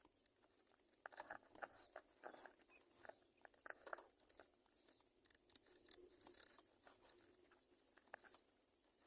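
Faint scratching and rustling of small birds moving about in their nest, a run of quick clicks and scrapes that is busiest for a few seconds after the first second, with a few faint high chirps.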